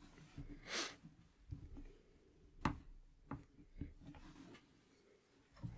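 Faint, scattered small clicks and light taps from handling a soldering iron and wires at a wooden workbench, with a short hiss about a second in.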